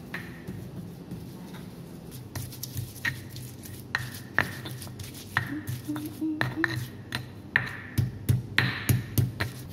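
Stone pestle grinding and knocking against a black stone mortar, crushing shallots, garlic and coriander seeds into spice paste. Sharp irregular clacks of stone on stone begin about two seconds in and grow louder and more frequent toward the end.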